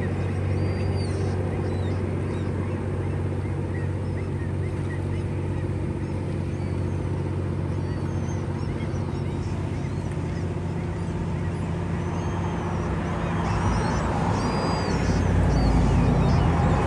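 A steady low motor hum with birds calling now and then. The rush of shallow stream water over rocks grows louder in the last few seconds.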